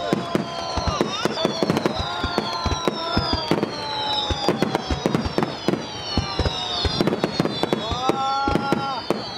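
Aerial fireworks display: a dense run of bangs and crackles, overlaid by long whistling tones that slide in pitch, several falling slowly and others rising, holding and dropping away.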